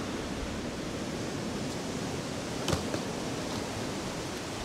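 Steady rushing of surf breaking on a stony beach, with one brief knock about two and a half seconds in.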